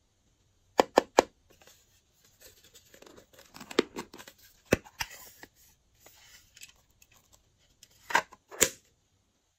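Hard plastic heart-shaped makeup palette being handled and opened: three quick sharp clicks about a second in, scratchy rustling and tapping against the plastic in the middle, and two louder snaps near the end.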